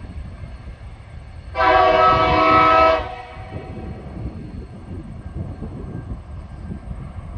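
One long blast, about a second and a half, of a TasRail TR-class diesel locomotive's multi-tone horn, sounded by the approaching train at the level crossing. A low steady rumble lies beneath.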